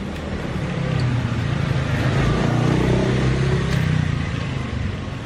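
A motor vehicle passing by: its engine sound swells, is loudest around the middle, and fades away.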